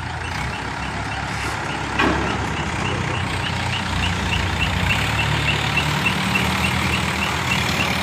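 Heavy machinery's diesel engines running steadily, with a rapid repeating high beep, about three a second, typical of a reversing alarm. A sharp knock about two seconds in.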